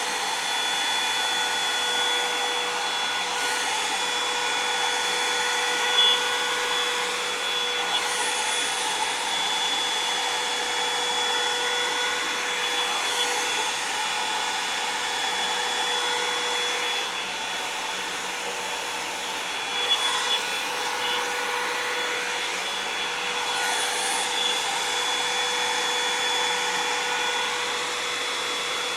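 Revlon One-Step hair dryer and volumizer (a hot-air brush) running steadily, its fan blowing with a constant whine. A couple of light knocks of handling break in briefly.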